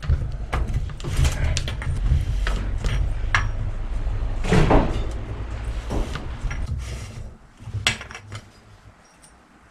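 Metal clinks, knocks and scrapes as a worn-out bicycle bottom bracket, its ball bearings gone, is worked out of the frame's shell with a tool. A low rumble of handling runs under the knocks and dies away after about seven seconds, with a last few clicks near the end.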